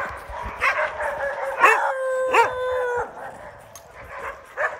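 Husky-type sled dogs barking, with one dog holding a steady howl for about a second in the middle and more sharp barks near the end.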